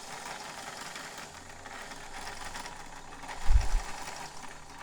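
White Model 510 sewing machine running steadily, stitching a wide zigzag at a somewhat quicker pace. A dull low thump comes about three and a half seconds in.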